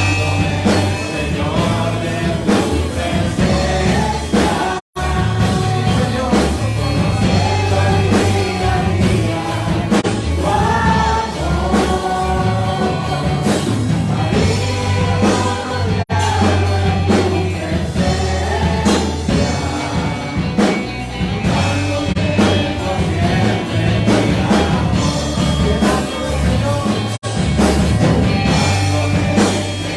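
Christian worship music: voices singing a melody over a band with a steady bass line. The sound cuts out for an instant about five seconds in.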